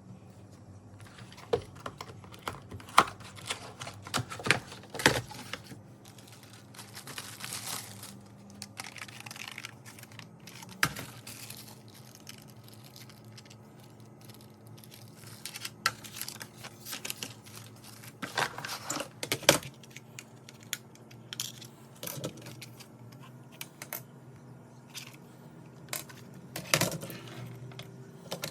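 Packaging being opened and handled: paper or plastic tearing and crinkling, with scattered knocks and clicks as parts of the box are moved.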